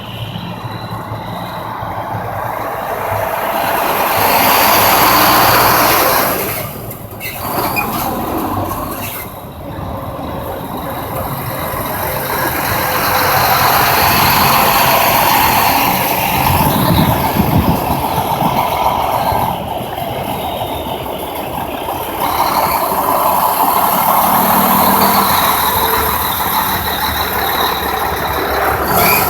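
Heavy trucks and other traffic passing on an interstate highway. The noise swells and fades several times as vehicles go by, and a low engine rumble comes through a little over halfway in.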